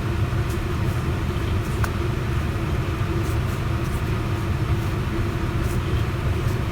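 A steady low hum runs without change, with a few faint, light ticks over it.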